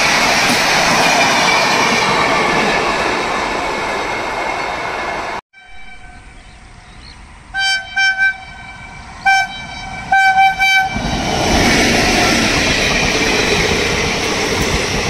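An Indian Railways train running past, its noise cutting off suddenly about five seconds in. After a quieter stretch, a locomotive horn sounds a series of short blasts, and a train then runs past loudly again.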